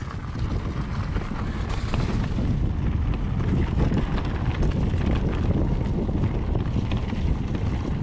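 Wind buffeting the microphone over the steady rumble of mountain bike tyres rolling on a trail, with frequent small clicks and rattles from the bike.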